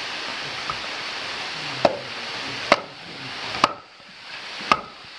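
Small axe striking a log on a chopping block as firewood is split by hand: four sharp wooden knocks about a second apart, the second one the loudest.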